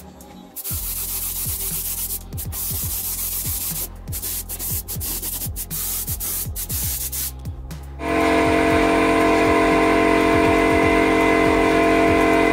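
Compressed-air paint spray gun hissing in stretches as a metal drawer is painted. About eight seconds in, a much louder sustained chord of several steady tones takes over.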